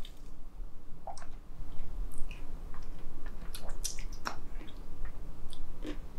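Two people sipping a frozen apple slush through paper straws: scattered small slurps, lip smacks and swallowing sounds.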